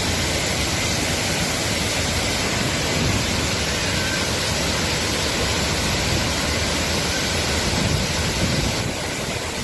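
Waterfall, a loud, steady, even rush of falling water.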